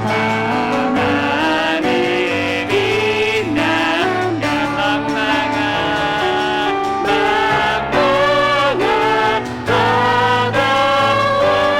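Worship team vocalists singing a praise song with piano accompaniment.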